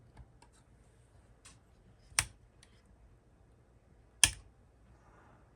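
Two sharp clicks about two seconds apart, with a few faint ticks between: metal test-probe tips tapping the solder lugs of the signal tracer's wiring during a continuity check.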